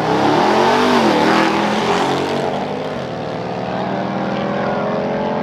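Two supercharged V8 pickup trucks, a Ram TRX and a Ford Raptor R, accelerating hard side by side. The engines rise and fall in pitch through the gears over the first two seconds, then settle into a steadier drone.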